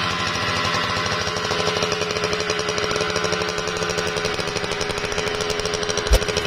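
Kawasaki Ninja 150 SS's two-stroke single-cylinder engine idling steadily with a rapid, even pulsing from the standard exhaust. One sharp knock comes near the end.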